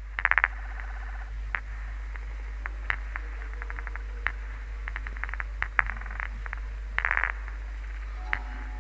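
Scattered sharp clicks and crackles, some in quick rattling clusters near the start and about seven seconds in, over a steady low hum.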